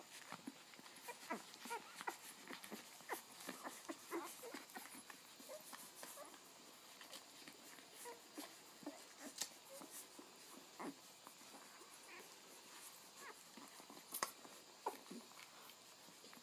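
Newborn Havanese puppies nursing: faint, frequent little squeaks and whimpers mixed with soft clicks.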